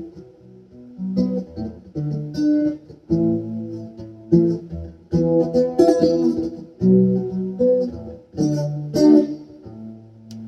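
Acoustic guitar playing the closing bars of a country song alone, picked and strummed chords, ending on a final chord that rings and fades.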